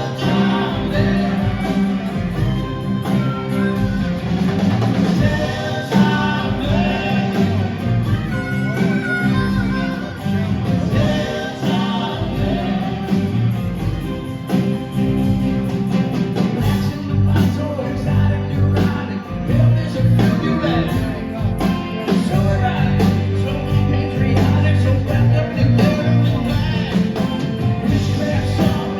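Live rock band playing a song with drums, bass and guitars, and a voice singing over it.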